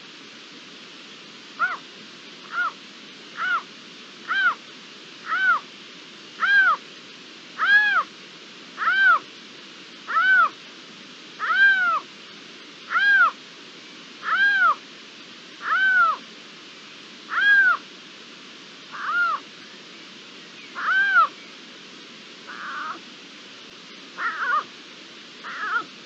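Iberian lynx calling: a long series of loud, meow-like calls, each rising and then falling in pitch. They start about two seconds in, at about one a second, and slowly space out. The last few, near the end, are shorter and rougher.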